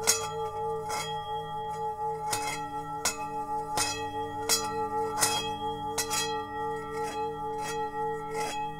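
Himalayan singing bowl struck with a wooden mallet at an even pace, about a dozen strikes, one every three-quarters of a second. Each strike rings out over a sustained metallic hum that wavers in a steady pulse.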